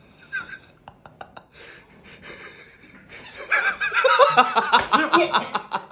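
People laughing and snickering, with a few short clicks about a second in; the laughter grows louder and denser from about three and a half seconds on.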